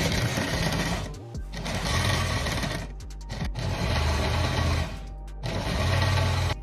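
Oster countertop blender running in four short pulses of one to two seconds each, with brief stops between them, puréeing a jar of roasted tomatillo salsa with lime juice and water.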